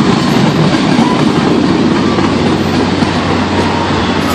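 Train cars rolling past on the rails: a steady, loud rumble and rattle of wheels on track.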